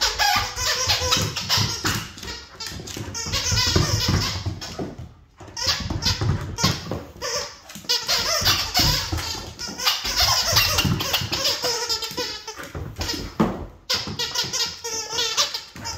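Laughter in repeated bursts over a dog's rough play with a toy, with scuffling and knocks.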